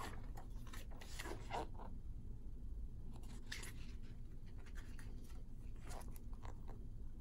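Pages of a paper booklet being handled and turned: short rustles and scrapes in a few clusters, over a faint steady low hum.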